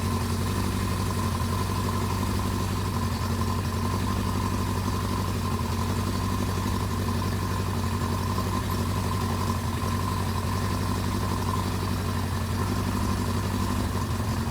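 1983 Suzuki GS1100GK's air-cooled inline-four engine idling steadily.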